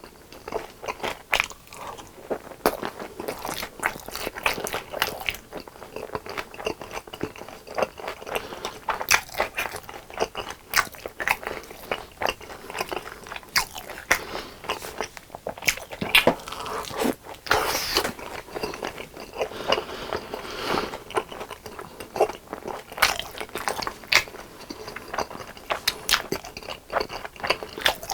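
Close-miked eating of crispy fried chicken: irregular sharp crunches of the crust as it is bitten and chewed, going on without a break.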